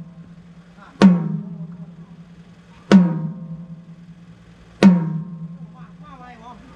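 A single drum from a drum kit is struck about every two seconds, four hits in all. Each hit rings out with a low tone that dies away slowly. This is a drum being checked one hit at a time while a live band's sound is mixed.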